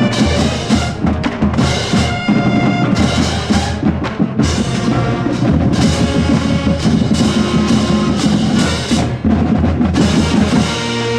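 High school marching band playing: bass and snare drums beating steadily under held notes from the wind instruments.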